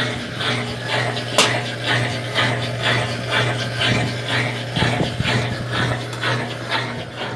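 Irregular clicks and light knocks of washing-machine parts being handled, a few a second, over a steady low hum.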